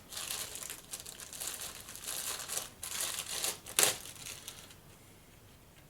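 Packaging being opened by hand, crinkling and rustling in a quick run of crackles, with one sharper, louder crackle just before the four-second mark; the handling stops about five seconds in.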